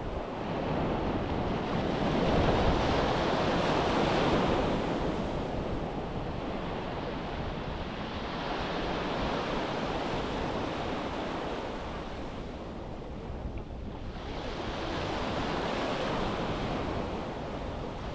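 Sea surf breaking on a beach, the wash swelling and fading in three surges, with wind buffeting the microphone.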